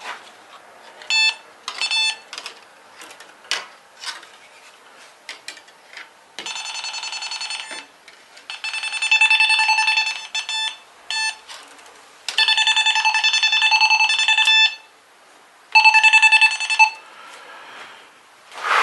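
Cable tracer receiver probe sounding a steady, buzzy beep tone in on-off bursts, the longest about two seconds, as it picks up the tone generator's signal on the traced cable. Light clicks from handling sound between the bursts.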